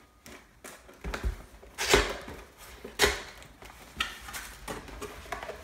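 Cardboard camera box being opened and its contents handled: a series of sharp knocks and rustles, the loudest about two seconds in.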